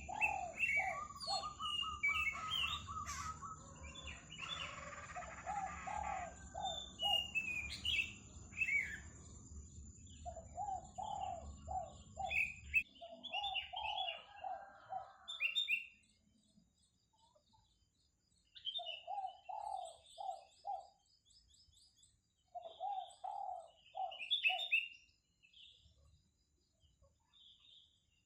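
Puter dove cooing in repeated short runs of four to six low notes, with pauses of a few seconds between runs. Other small birds chirp higher over it.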